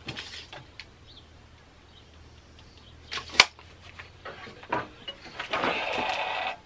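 Wooden knocks and clicks as a 2x4 is handled on a sliding compound miter saw, the loudest a single sharp knock about three and a half seconds in. Near the end the saw runs and its blade cuts into the lumber for about a second, then stops suddenly.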